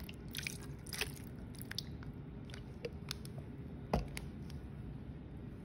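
Sauce-coated pork ribs being handled in a disposable aluminium foil pan: scattered wet squishes and small clicks, with one sharper knock about four seconds in.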